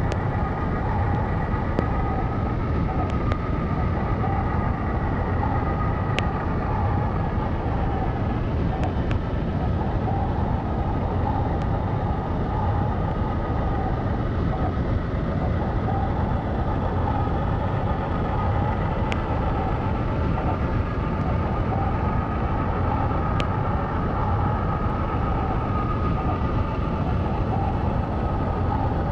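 Steady chainsaw-like engine noise from an animatronic chainsaw prop, running without a break, with a few faint clicks over it.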